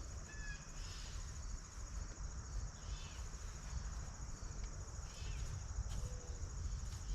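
Steady high-pitched insect chorus droning throughout over a low rumble, with a couple of short chirps about three and five seconds in.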